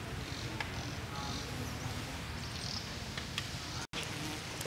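Outdoor ambience: a low steady rumble with a few faint high chirps and several short sharp clicks, like dry leaves crackling. The sound cuts out for an instant near the end.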